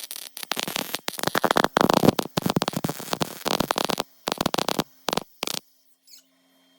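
Welding arc crackling and sputtering in short irregular bursts of stitch welds on car-body sheet metal, stopping about five and a half seconds in, after which a faint steady hum remains.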